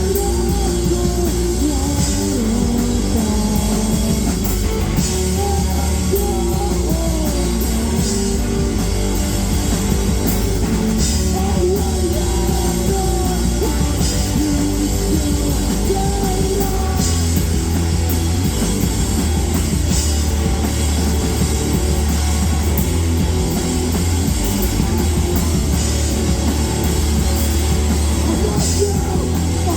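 A live rock band playing loudly, with a drum kit and electric guitar over a heavy, steady bass.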